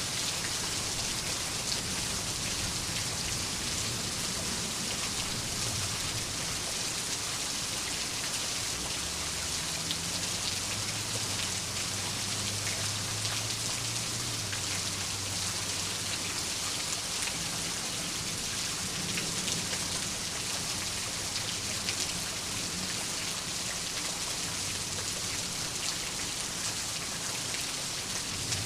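Steady rainfall, an even hiss with scattered drop ticks. A low rumble of thunder swells and fades in the middle.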